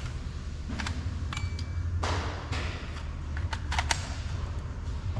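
Light plastic clicks and taps, scattered and irregular, as a clear plastic trim piece is worked off a car door at the mirror mount, with a short scrape about two seconds in. A steady low hum runs underneath.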